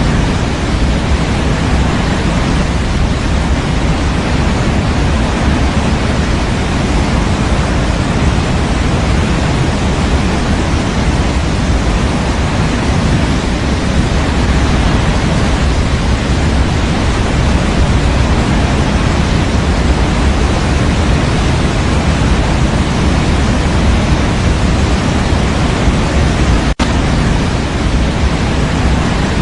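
Steady synthetic white noise for baby sleep: an even, continuous hiss weighted toward the low end. It drops out for a split second near the end.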